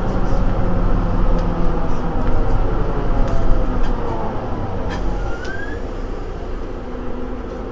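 Mercedes-Benz Citaro G C2 Euro 6 articulated bus standing with its engine idling. A steady low hum eases off a little about five seconds in, with a few faint clicks.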